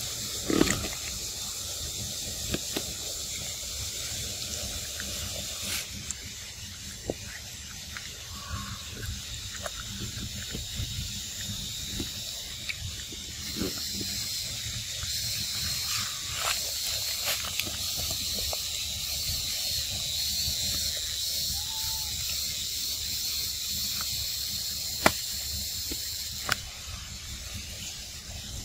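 A steady high-pitched drone of forest insects, with scattered sharp clicks and smacks close by as macaques handle and eat ripe mango.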